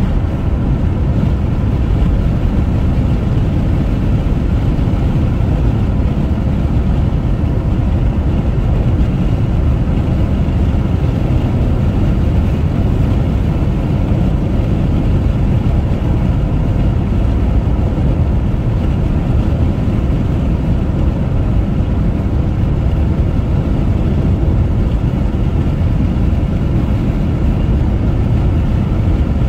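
Car driving along a highway: steady low road and engine rumble with no changes.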